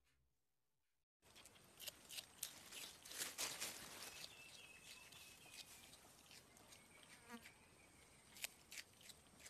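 Quiet outdoor ambience starting suddenly about a second in: a steady high-pitched insect buzz, with scattered rustles and clicks in the grass.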